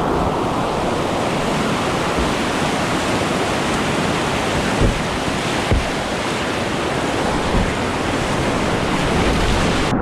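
Whitewater river rapids rushing in a loud, steady roar, with a couple of dull low thumps near the middle.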